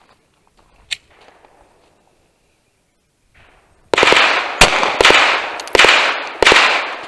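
Five 9mm pistol shots from a Glock 43X, starting about four seconds in and fired in fairly quick succession. Each shot is followed by a ringing echo.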